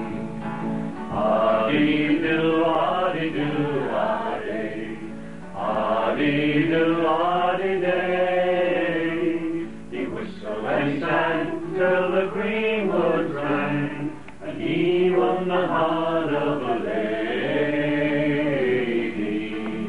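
Two men singing together, accompanied by an acoustic guitar.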